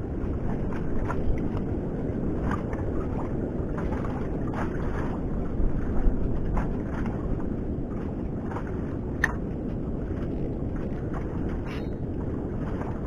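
Steady wind rumble on the microphone over water lapping against a floating fish-farm raft, with scattered light clicks and taps; the loudest knocks come about six seconds in.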